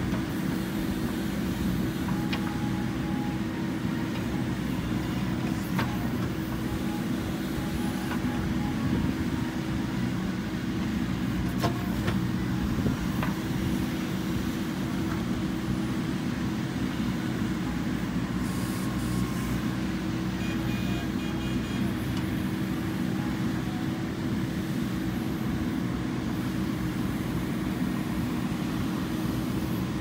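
JCB 3DX backhoe loader's diesel engine running steadily with a constant hum while the backhoe arm digs and dumps soil. A few sharp knocks stand out over it.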